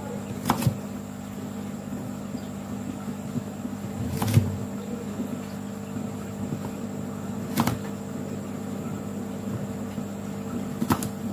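Kitchen knife cutting carrot on a plastic cutting board: a few sharp, isolated knocks several seconds apart, two close together near the start. A steady background hum runs underneath.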